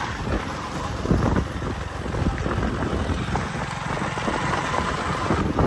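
Motorbike running along a rough dirt road, with wind on the microphone.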